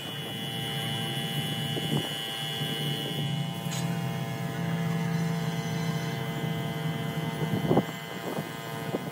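Steady motor drone with the hiss of a compressed-air paint spray gun in use. There is a short knock about two seconds in and a louder one near the end.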